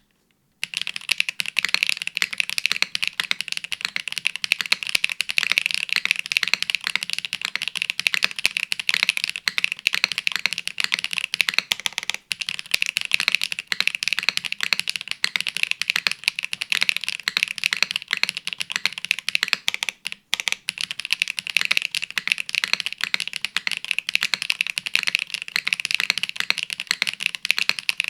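Fast, continuous typing on a custom Gehirn TKL mechanical keyboard with HMX Grape Soda switches, GMK Norse keycaps and a top-mounted aluminium plate with no foam: a dense stream of key clacks starting about half a second in, with two very short breaks.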